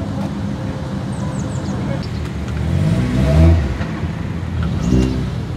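BMW M3 E92's 4.0-litre V8 on an Akrapovic exhaust, idling and then revved: one slower rev climbs and falls away about two to four seconds in, and a short throttle blip follows near the end.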